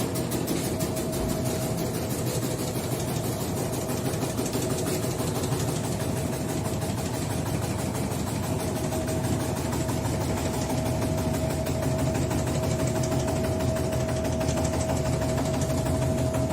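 An automatic tobacco-slicing machine running steadily, with a constant whine and a fast, even mechanical chatter.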